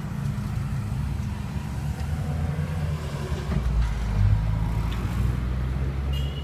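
A motor vehicle's engine running close by, a steady low rumble that grows louder about three and a half seconds in.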